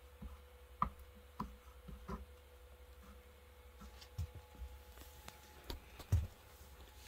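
Handling noise as the plastic armrest part and welding tools are moved: a few scattered light clicks and knocks, the loudest and deepest a thump about six seconds in, over a faint steady hum.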